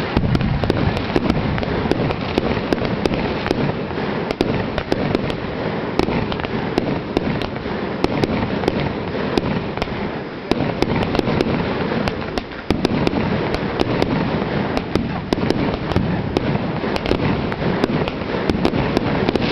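Fireworks going off in a dense, continuous barrage: many rapid bangs and crackles overlapping without a break.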